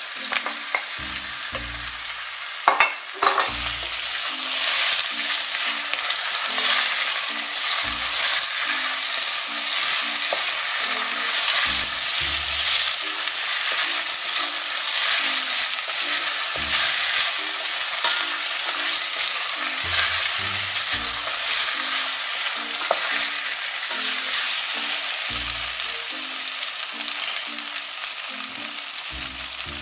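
Sliced potatoes frying in hot oil and onion in a stainless steel pot, sizzling steadily while a wooden spoon stirs and scrapes them, with small clicks and knocks against the pot. A sharp knock about three seconds in, as the last potatoes go into the pot, after which the sizzling grows much louder.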